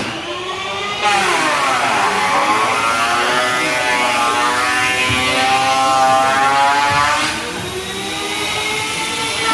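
A motor running with its pitch repeatedly dipping and rising in smooth swoops. It gets abruptly louder about a second in and drops back somewhat near the end.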